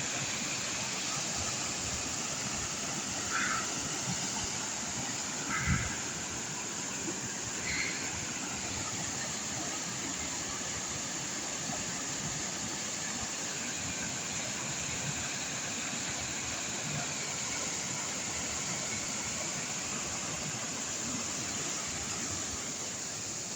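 Waterfall rushing steadily, with a few short squeaks and a brief thump about three to eight seconds in.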